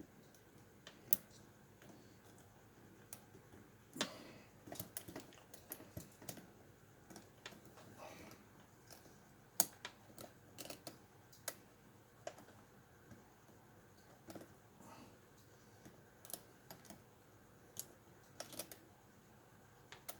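Lock pick and tension wrench working the pins of a pin-tumbler lock cylinder: faint, irregular sharp clicks and light crunching as the serrated pins catch and set, the "Rice Krispie crunch" from the back pins.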